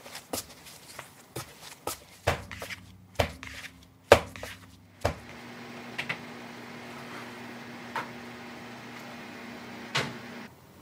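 Bread dough slapped and kneaded by hand on a wooden pastry board, a quick run of sharp knocks. About five seconds in, an electric oven starts running with a steady hum, with a few clicks on top and a sharper click near the end before the hum stops.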